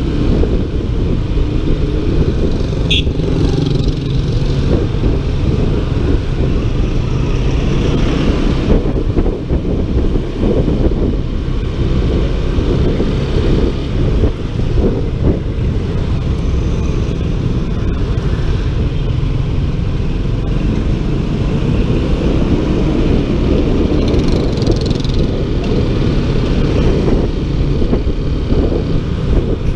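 Honda ADV 150 scooter's single-cylinder engine running under way, with heavy wind and road noise on the rider's microphone, steady throughout. A short high tone about three seconds in.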